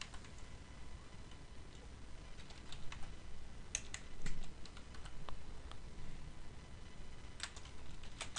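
Computer keyboard being typed on: light, irregular keystrokes spread out with uneven pauses between them.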